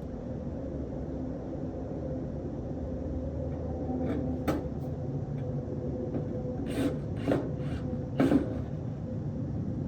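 A steady machine hum with a low tone, and a few sharp knocks about halfway in and near the end.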